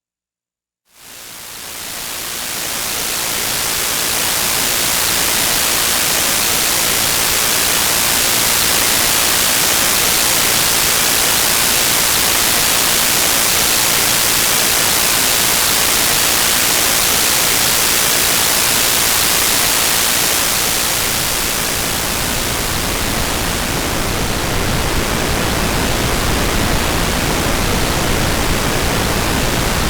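Digitally generated white noise, a steady bright hiss fading in about a second in. Near the end it changes to pink noise, deeper and fuller with less treble.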